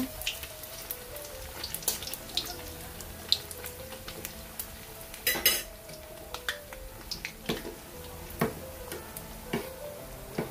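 Battered slices of glutinous rice cake deep-frying in hot oil in a wok: a steady sizzle dotted with many small crackles and pops. A metal spoon knocks against the wok now and then as the pieces are turned.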